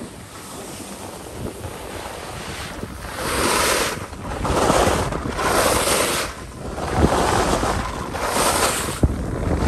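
Rushing wind noise on the microphone, swelling from about three seconds in into repeated surges roughly once a second, with a couple of short knocks near the end.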